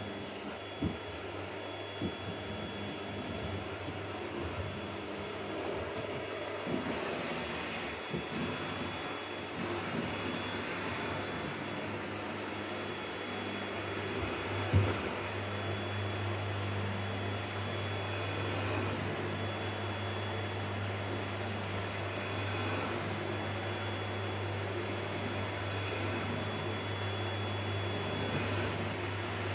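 Vacuum cleaner running steadily: a low hum under a thin high whine, with a few short knocks, the loudest about fifteen seconds in.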